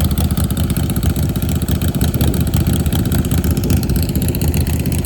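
Motorcycle engine running steadily and loud, with fast even firing pulses.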